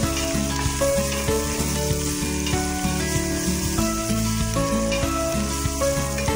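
Background music over chopped onions and garlic sizzling in hot oil in a steel pot as they are stirred with a spatula.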